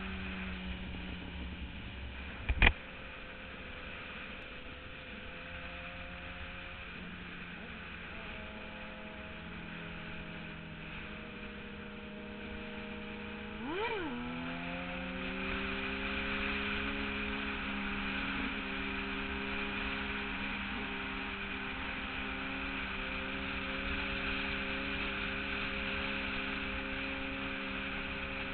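Sport motorcycle engines running at highway speed under heavy wind rush. About halfway through, the engine revs sharply up and back down, then settles at a higher pitch as the bikes speed up. A sharp knock comes a few seconds in.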